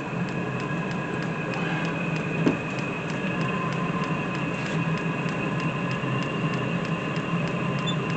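Diesel air heater running: a steady whirring hum with a couple of held tones, and a fast, regular ticking throughout. A single sharp knock comes about two and a half seconds in.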